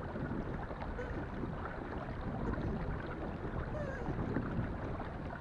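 Steady wind noise on the microphone mixed with water lapping against a kayak's hull.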